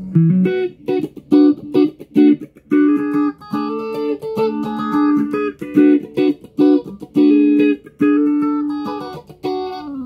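Electric guitar played through phaser, chorus and amp-simulator pedals into a small Orange combo amp: a melodic line of single picked notes, ending with a slide down in pitch.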